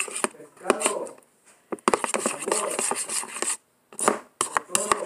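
Irregular clicks and knocks from hands handling a plastic glue bottle and bowl, with a faint voice in the background.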